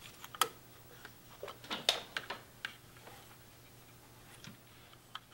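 Scattered light clicks and taps of metal parts being handled as a Hall effect sensor plate is set loosely in a motorcycle engine's front cover, several close together about two seconds in.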